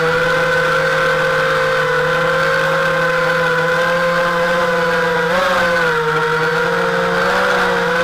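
Small FPV quadcopter's brushless motors whining at a steady pitch, with a brief rise in pitch about five seconds in.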